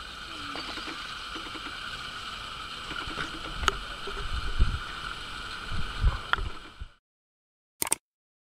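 Outdoor ambience: a steady high-pitched drone with a few low thuds, cut off suddenly about seven seconds in. A short click of a subscribe-button animation follows near the end.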